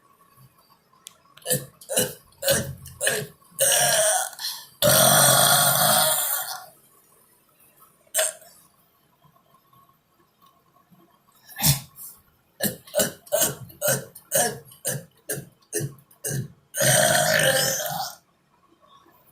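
A person burping over and over: runs of short burps, with two long drawn-out burps about five seconds in and again near the end, and a quiet pause in the middle.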